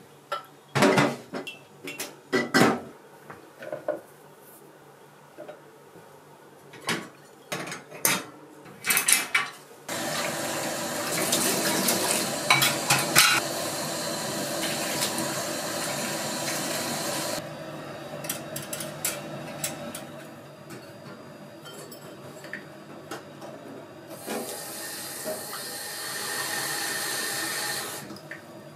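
Dishes being washed in a stainless steel kitchen sink: bowls clinking and knocking together, then the tap running for several seconds about ten seconds in, with more clatter under it. The tap runs again near the end as a bowl is rinsed.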